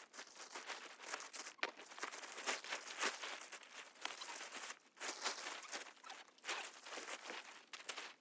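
A tent being pitched: irregular rustling, crunching and light clicks of tent fabric and gear being handled, faint throughout.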